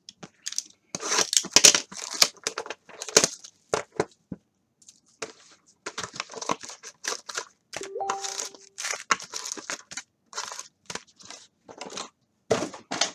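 Plastic wrap and foil card-pack wrappers crinkling and tearing in irregular bursts as a box of 2016 Donruss Optic baseball cards is opened and its packs pulled out.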